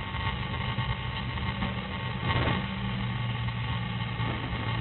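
Steady low hum under a haze of rustling and handling noise on a body-worn camera carried through dry grass, with one brief louder scuff about halfway through.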